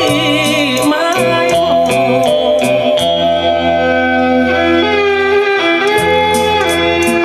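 Recorded music played back over Celestion SL6si loudspeakers driven by a vintage tube amplifier: an instrumental passage with a wavering melody line over bass notes and a steady beat of high ticks.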